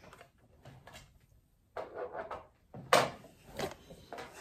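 Handling knocks and scuffs: near quiet at first, then a few short scuffs and one sharp knock about three seconds in, with smaller knocks after it.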